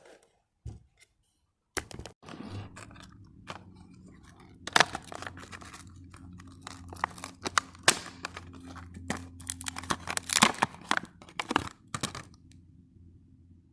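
Tool packaging being torn open and crinkled by hand: irregular tearing and crackling with several sharp snaps, over a low steady hum.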